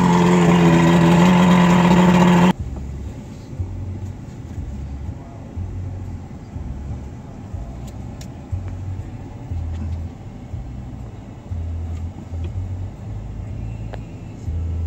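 A 90 HP outboard motor running loud and steady, cut off abruptly about two and a half seconds in. After that there is only a low, uneven rumble that comes and goes.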